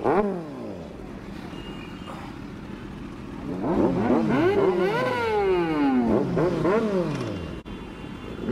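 Kawasaki Z900 inline-four with an aftermarket exhaust, revved at standstill. It gives one sharp blip at the start and settles to idle, then about halfway in fires a quick run of several blips, each rising and dropping back.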